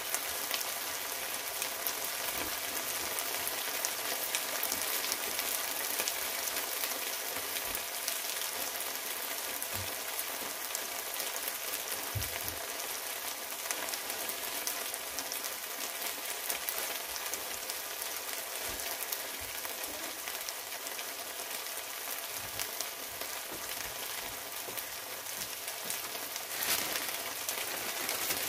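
Sliced beef searing in hot oil in a frying pan: a steady sizzle full of fine crackling.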